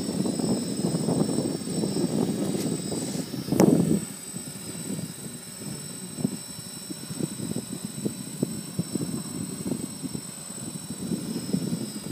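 DJI Flame Wheel F550 hexacopter hovering, its rotors' steady buzz and high whine mixed with gusty wind buffeting the microphone. The wind is strongest in the first few seconds, with a loud gust about three and a half seconds in.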